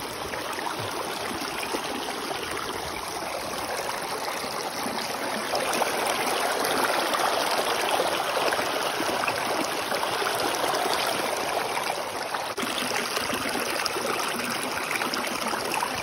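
Shallow rocky creek running, with water rushing and splashing over stones in a small cascade. It grows louder a little before the middle and eases slightly toward the end.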